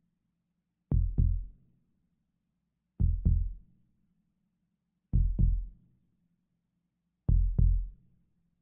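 Heartbeat sound effect: slow lub-dub double thumps, four in all, about two seconds apart. It is a heartbeat that has slowed right down.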